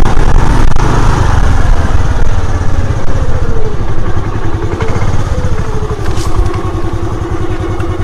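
Motorcycle engine running while riding, with a heavy low rumble. Its pitch dips and rises, then holds steady near the end.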